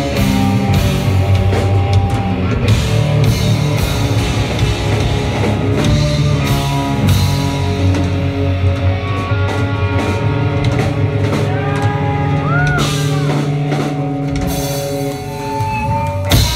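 A live rock band playing an instrumental passage, loud: distorted electric guitars over a drum kit, with a guitar bending notes up and down about three-quarters of the way through.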